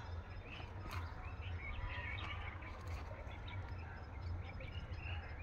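Small birds chirping repeatedly over a steady low outdoor rumble.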